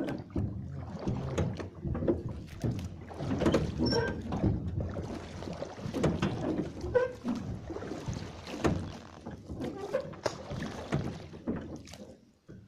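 Water splashing and lapping against a small boat as it moves along the river, with irregular knocks and bumps from the hull.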